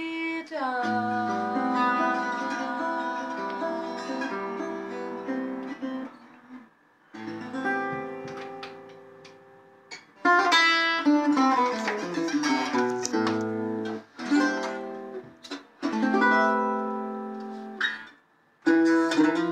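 Acoustic guitar playing an instrumental passage of picked chords and melody lines, with a few short pauses between phrases.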